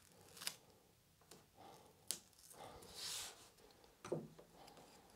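Faint handling sounds of blue masking tape being pulled off the roll and pressed onto the edge of a wooden worktop: a few small clicks and a short tearing rasp about three seconds in. A light knock follows just after four seconds as a marking square is set against the edge.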